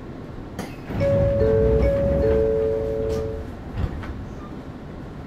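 Ryutetsu 5000 series electric train sounding a loud two-note horn about a second in, held for about two and a half seconds over the rumble of the train on the rails. A single click follows shortly after the horn stops.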